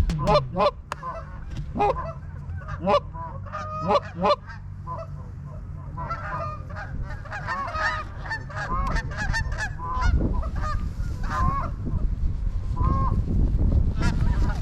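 Geese honking: loud, separate honks in the first few seconds, then a dense chorus of many geese calling together. A low rumble comes in about ten seconds in.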